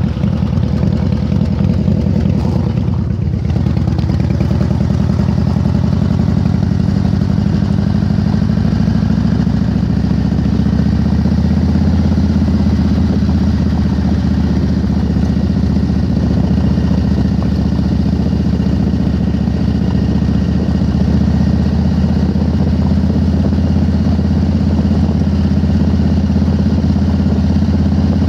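Cruiser motorcycle engine running under way, its pitch rising through the first several seconds as it picks up speed, then holding steady at cruising speed.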